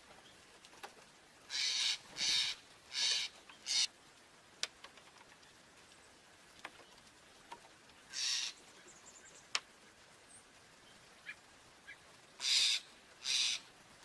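Small songbirds calling in short harsh notes: four in a quick run about two seconds in, one near the middle and two more near the end, with a few faint ticks in between.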